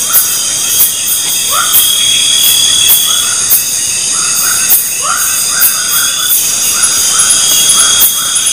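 Night chorus of insects and frogs by a forest river: steady high-pitched trilling with a very high chirp pulsing at a regular beat, over repeated short calls that rise at the start, some single and some in quick runs.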